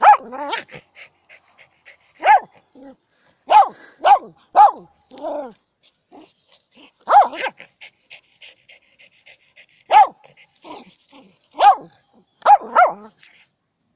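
Small terrier barking in short, sharp, high barks at a stick: about a dozen barks with pauses between them, sometimes two or three in quick succession.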